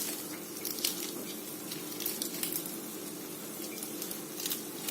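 Pan of Maggi noodles cooking on a low flame: a steady faint sizzle and bubbling, with a few scattered small pops.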